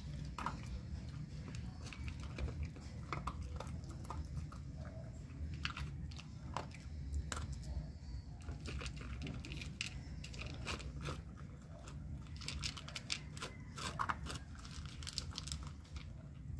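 A dog eating dry kibble from a plastic bowl: irregular crisp crunches and clicks as it chews, over a steady low background rumble.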